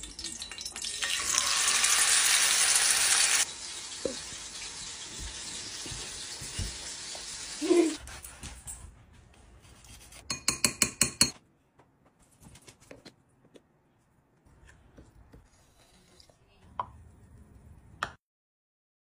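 Steak sizzling in a hot pan, loud at first and then cutting off abruptly into a lower steady sizzle. Later comes a quick run of about eight knife strokes through the cooked steak onto a slate cutting board, followed by faint clinks of plating.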